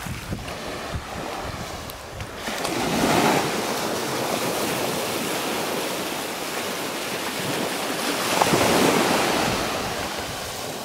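Small waves breaking and washing up a sandy shore, the surf swelling louder a few seconds in and again toward the end, with some wind rumble on the microphone.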